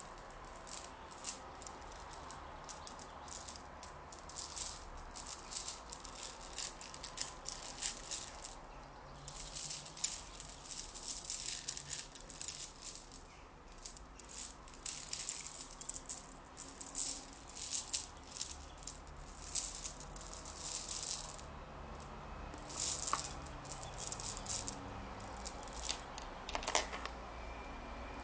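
Crisp rattling and rustling from a small object handled close to the microphone, in irregular runs of quick strokes, with a couple of sharper taps near the end.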